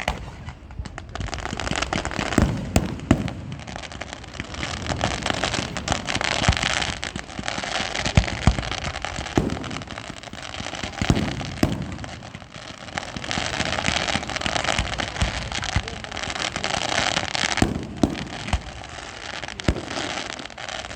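Fireworks display: a steady run of booms and sharp bangs from shells bursting overhead, over continuous dense crackling.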